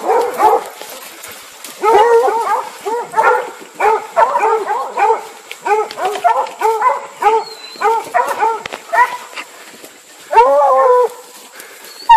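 Bear hounds barking and baying in quick, repeated chop barks at a black bear they have caught up with, with one longer drawn-out bawl about ten seconds in.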